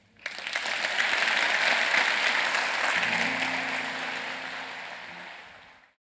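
Audience applause that swells quickly, then gradually fades and is cut off abruptly near the end. A few low held music notes come in under it about three seconds in.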